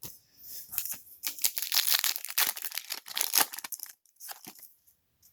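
Foil trading-card pack wrapper crinkling as it is torn open, a dense crackling for about three and a half seconds, then a few short crinkles.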